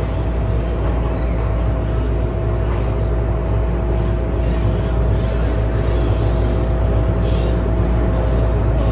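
Cabin noise of an MTR Tsuen Wan Line M-train running at speed through a tunnel: a steady low rumble of wheels on rail with a constant hum.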